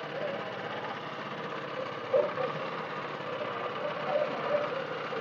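Motor of a small fishing canoe running steadily, with an even, rapid chugging.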